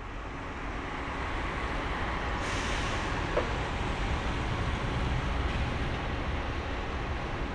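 Jet airliner engine noise, a steady rumble with a faint whine, growing gradually louder as the aircraft approaches on final. A short click about three and a half seconds in.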